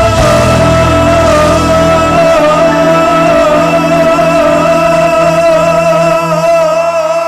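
Live pop band ending a song: a singer's long held note with vibrato over a sustained band chord. The bass drops out about two seconds in, and the music starts to fade near the end.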